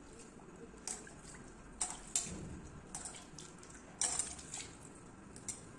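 A few light splashes and clinks, spread out and short, from a hand working in a small steel bowl of water.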